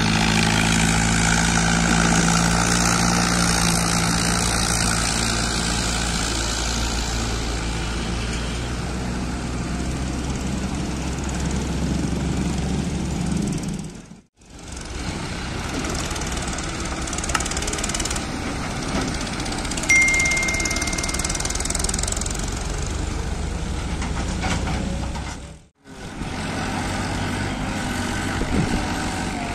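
Diesel farm tractors running under load as they pull heavy double trolleys of sugarcane, a steady engine drone that drops out briefly twice where the footage is cut.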